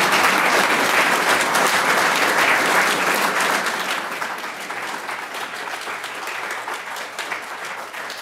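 An audience applauding, many hands clapping densely, loudest at first and then gradually fading away over the last few seconds.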